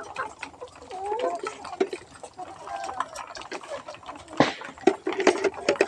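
Chickens clucking, short calls rising and falling in pitch, with a few sharp clicks a little past the middle.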